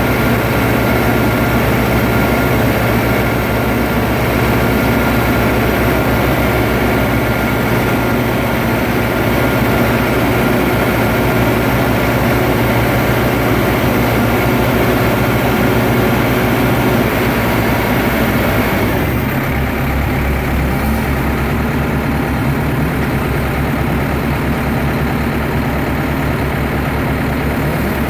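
Diesel engine of a tractor-mounted HAM300 tower yarder running steadily during uphill yarding. About two-thirds of the way through the sound changes: the higher whine drops away and the low note shifts, as the engine's load or speed changes.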